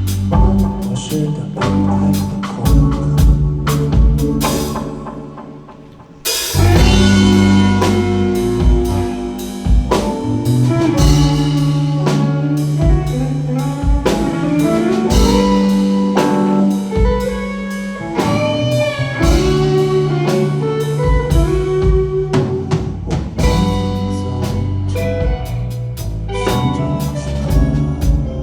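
Band music with a drum kit, bass and electric guitar playing an instrumental passage. About five seconds in, the sound drops away briefly, then the full band comes back in at once.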